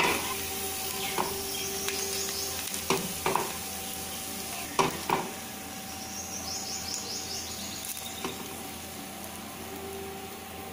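Oil sizzling in a hot paniyaram pan, with sharp taps and clicks of a stick against the pan and plate as the cooked paniyaram are lifted out. Most of the taps come in the first five seconds.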